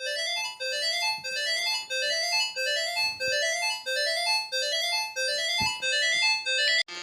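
Keyboard music: a bright electric-piano-like tune repeating a short rising run of notes over and over. It cuts off abruptly just before the end.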